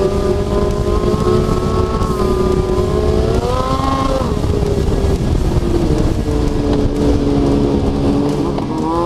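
Snowmobile engine running at speed, its pitch rising about three and a half seconds in, then dropping back and holding lower before climbing again near the end, over a steady low rumble.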